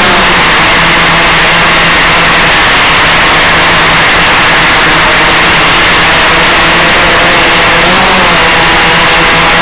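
Gaui 500X quadcopter's electric motors and propellers, a loud steady buzzing hum over rushing noise, as carried over the FPV video downlink and recorded by the ground DVR. The motor tones waver slightly in pitch near the end.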